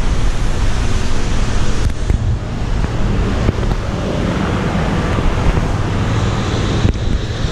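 Low wind rumble on an action camera's microphone, carried along while walking, mixed with street traffic going by.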